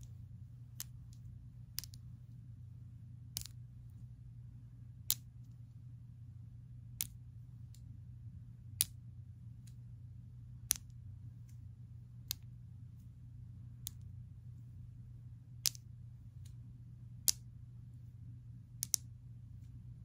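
Long acrylic nails clicking: single sharp clicks about every one and a half to two seconds, with a quick double click near the end, over a steady low hum.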